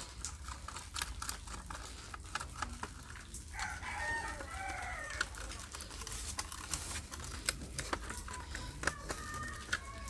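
A rooster crows faintly about three and a half seconds in, with a shorter call near the end. Scattered small clicks run throughout from a screwdriver tightening screws into a plastic toy car chassis.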